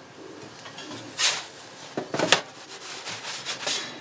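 A metal pizza paddle scraping and knocking against the stone base and steel frame of a small homemade pizza oven: a few short scrapes, about a second in, around two seconds in, and near the end.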